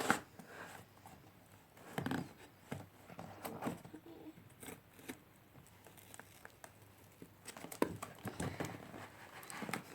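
Packaging of a posted parcel being handled: scattered faint taps and rustles, a quiet stretch in the middle, then a quicker run of small knocks near the end.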